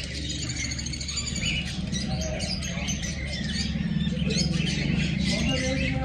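A flock of caged lovebirds and finches chirping and twittering together in many overlapping short calls, over a steady low hum.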